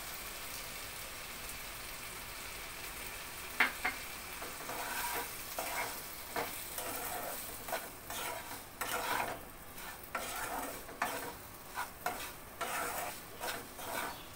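Wooden spatula stirring sugar-coated grapes in a coated kadai over a steady sizzle from the hot pan. A sharp knock of the spatula on the pan comes about three and a half seconds in, then quick repeated scraping strokes, about two a second.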